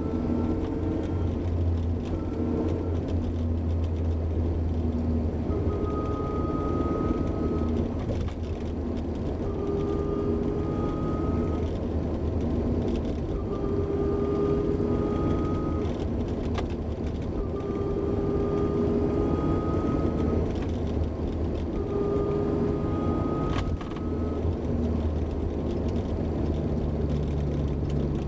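Honda S2000 under way, with an abnormal whine from its rear differential gears over the steady low running noise. The whine comes and goes every few seconds, holding for a second or three each time and rising slightly in pitch.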